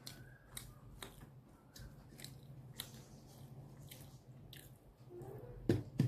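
Close-up chewing and mouth clicks of a person eating rice and curry by hand, over a low steady hum, with one louder short thud near the end.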